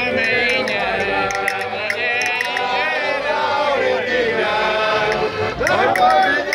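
A group of men singing a folk song together at full voice, accompanied by an accordion.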